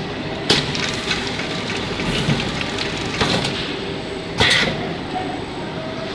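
Automatic shrink wrapping machine running with a steady mechanical noise, broken by several sharp clacks, the loudest about four and a half seconds in.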